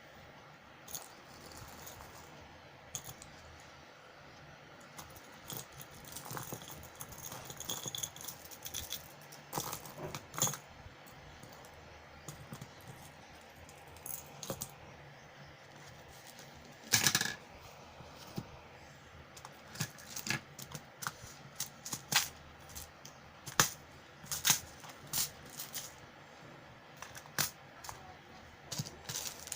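Small hard objects being handled, most likely fishing lures and their packaging: irregular clicks and light rattles, with one louder clatter about halfway through and quicker clicking later on.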